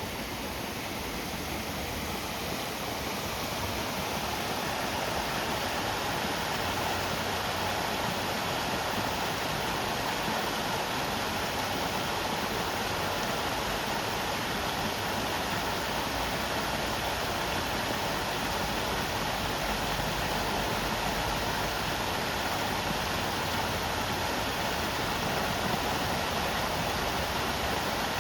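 River water rushing steadily, swelling slightly over the first few seconds and then holding even.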